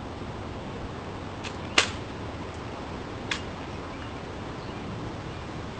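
Sharp cracks from a rifle: a loud one about two seconds in and a softer one about a second and a half later, with a few faint ticks around them, over a steady background hiss.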